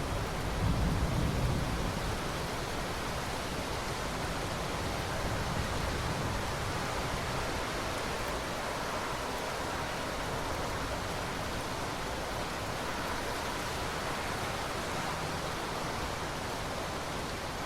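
Steady heavy rain hissing evenly, with a brief low rumble about a second in.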